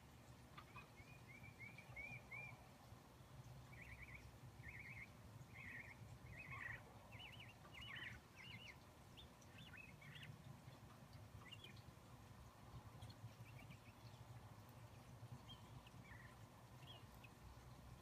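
Small birds chirping faintly outside, in quick groups of short high chirps scattered throughout, over a steady low hum.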